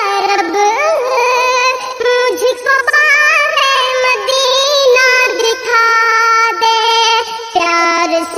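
A high, pitch-shifted synthetic-sounding voice singing a naat melody in long, gliding, ornamented notes.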